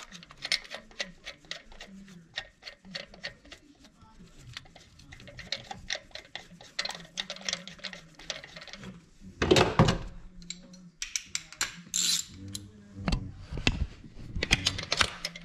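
Ratchet wrench clicking in a steady run of quick ticks as it turns the bolt of a valve spring compressor, pushing a valve spring down on a Toyota 2JZ cylinder head. Later a few louder metal clanks as the tool is handled.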